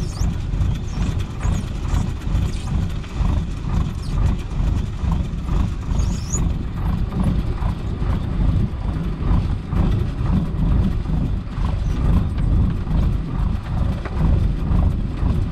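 Small fishing boat's diesel engine running with a low, uneven knocking throb while a mesh net is hauled aboard, with scattered light clatter over it.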